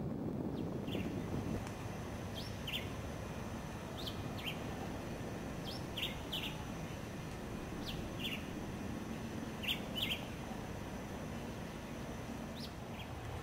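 Black-whiskered vireo singing short, clipped phrases of two or three high notes, repeated every one and a half to two seconds, over a steady low background hiss.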